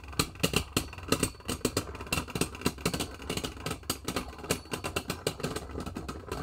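Two Beyblade Burst spinning tops, Helios Volcano and Golden Dynamite Belial, clashing in a plastic stadium. The hits make a rapid, irregular clatter of sharp clicks that keeps up throughout.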